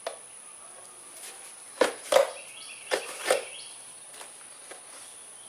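A few short, sharp knocks in two pairs, about a second apart, over faint background noise with a steady high-pitched whine.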